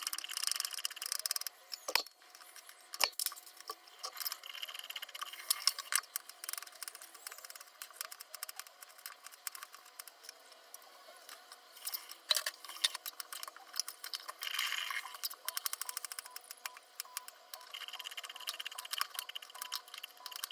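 Kitchen preparation sounds: irregular clicks, clinks and knocks of utensils and dishes being handled, with a sharp knock about two seconds in.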